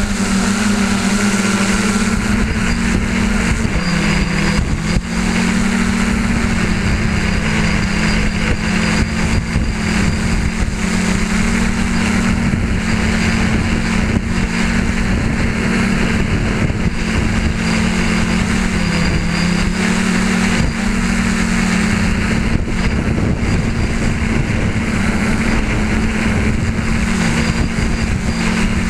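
Tricopter's electric motors and propellers buzzing steadily right beside the onboard camera as it hovers, the pitch shifting slightly now and then as the throttle adjusts.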